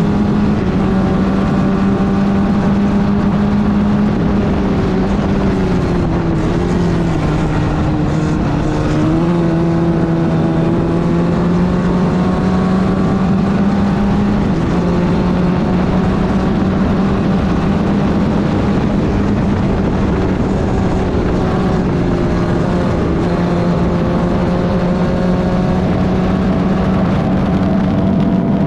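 Club Ford race car's four-cylinder engine running hard at high revs, its pitch steady for most of the time but dipping for a few seconds about six seconds in before climbing back up.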